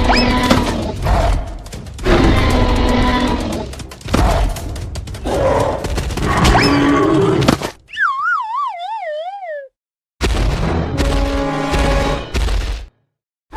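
Loud background music with cartoon-style sound effects, including quick rising whistles. About eight seconds in, a wobbling tone slides downward for nearly two seconds, then the sound cuts out to dead silence twice, with a burst of music in between.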